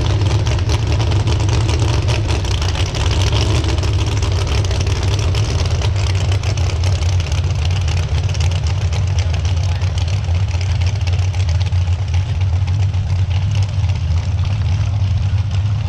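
An engine idling steadily, a low rumble with a constant crackling hiss over it.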